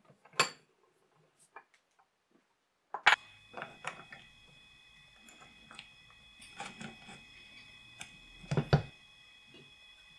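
Small metal clicks and taps of a bracket and bolts being handled and fitted against an electric hand planer's body, with a louder knock of the planer being shifted on the bench about eight and a half seconds in.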